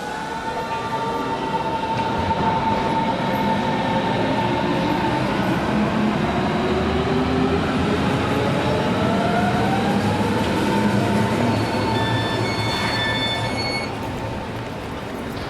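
Train running on rails, with a pitched whine that rises in pitch twice over the noise of the wheels. It gets louder a couple of seconds in and eases off near the end, with thin high tones just before it drops.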